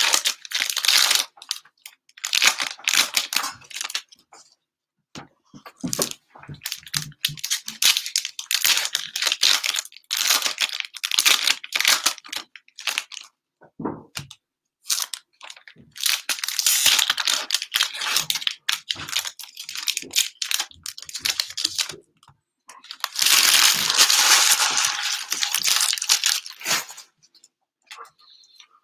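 Crinkling and tearing of the cellophane wrappers on trading-card cello packs as they are opened and handled, in repeated bursts a few seconds long with short pauses between.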